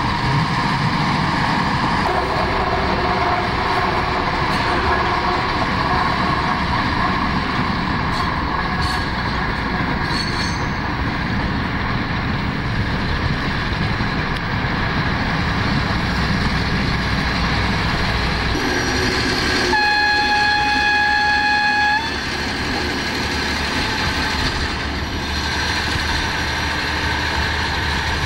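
VT 98 Schienenbus (German diesel railbus) running along the line with a steady drone. About two-thirds of the way in its horn blows one long, high note for about two seconds.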